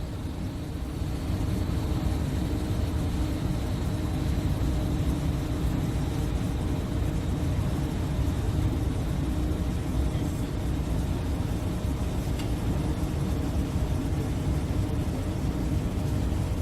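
Steady low rumbling noise with a few faint hums through it, unchanging throughout.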